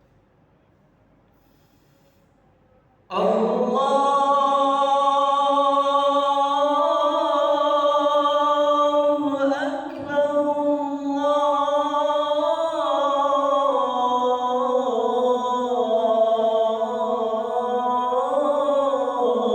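About three seconds of near silence, then a man's voice chanting the adhan, the Islamic call to prayer, in long held notes with wavering melismatic ornaments. The chant breaks briefly about ten seconds in.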